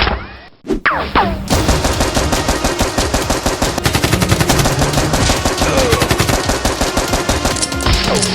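Rapid automatic gunfire, many shots a second, starting about a second and a half in and running on steadily, with a few falling whistle-like glides over it.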